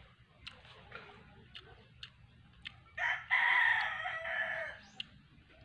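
A rooster crows once about three seconds in: a short first note, then a longer held call that trails off, about two seconds in all. Faint scattered clicks come before and after it.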